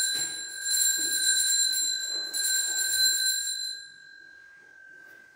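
Altar bells rung at the elevation of the chalice: two fresh rings, about half a second and two seconds in, on a bright ringing tone that fades out over the last couple of seconds.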